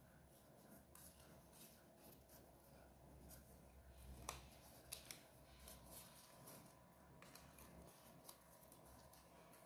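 Faint crinkling and light ticks of paper being folded and pressed together by hand, over a low steady hum.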